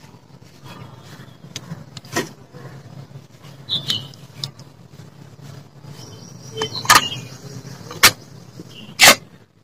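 Zebronics Zeb Pods 1 earbuds and their plastic charging case handled, with a few light clicks and then three sharp clicks about a second apart near the end as the buds are set into the case. A low steady hum runs underneath.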